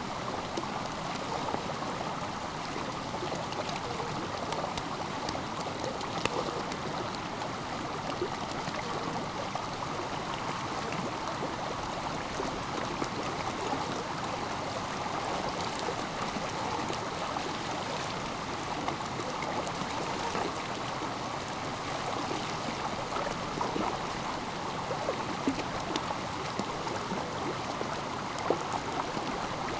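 Stream water running steadily, with a few brief ticks over it.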